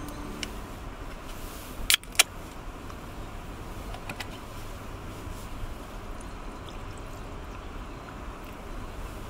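A drink can's pull tab cracked open with a short hiss and two sharp clicks about two seconds in, over a steady background hiss.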